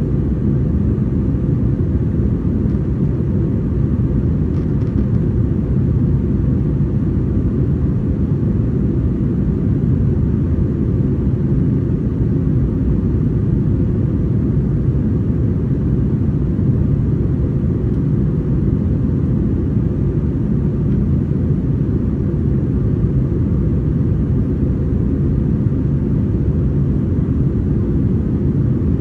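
Steady low cabin drone of an Airbus A321-231 in flight: its IAE V2500 engines and the airflow over the fuselage, heard from a window seat inside the cabin.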